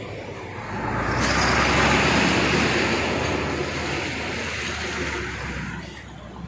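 A motor vehicle passing close by on the road, its engine and tyre noise swelling about a second in and fading away near the end.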